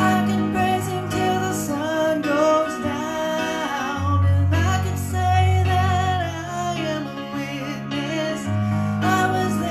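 A woman singing a slow gospel worship song to her own electronic keyboard accompaniment, held chords shifting every few seconds under the voice.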